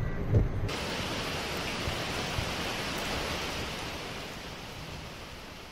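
Heavy monsoon rain hissing steadily, slowly fading toward the end, with a few low thumps in the first half second.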